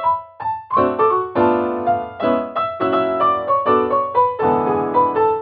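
Background piano music: a melody over chords, each note struck and then dying away.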